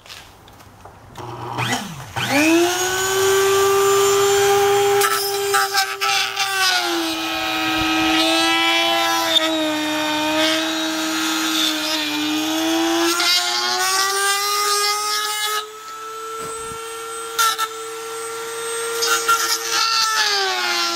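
Dremel rotary tool in a router table starting up with a rising whine about two seconds in, then running as its router bit cuts slots into a Kydex sheet. The motor's pitch sags and recovers as the bit bears into the plastic.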